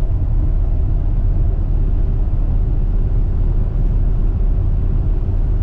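Steady low rumble of a vehicle's engine and road noise, heard inside the cab while driving.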